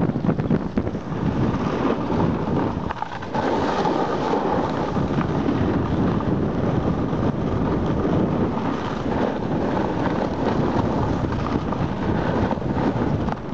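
Wind buffeting the camera microphone on a fast snowboard run downhill, a continuous loud rushing, mixed with the hiss and scrape of a snowboard sliding over packed snow. The sound dips briefly and shifts a little over three seconds in.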